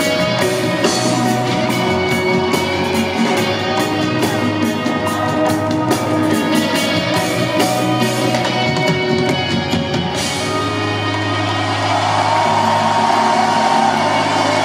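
Live reggae band heard from the crowd: drums, bass, electric guitar and keyboards. The drum beat stops about ten seconds in, leaving held chords as crowd noise rises.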